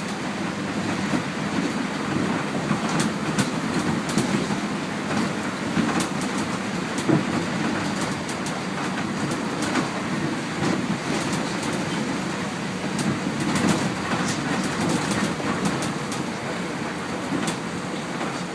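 Inside a MAN 18.310 bus on the move: steady engine and road noise with frequent sharp rattles and clicks from the bodywork and fittings.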